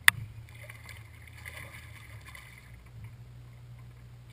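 Steady low hum of a bow-mounted electric trolling motor on a bass boat, with one sharp click just after the start.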